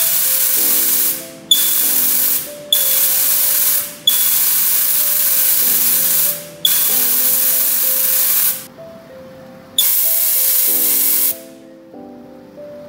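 Steam hissing out of an autoclave's pull-ring safety valve as it is pulled open and let go again and again, venting pressure from the chamber. There are about six loud bursts of hiss, each lasting one to two and a half seconds and starting with a sharp click.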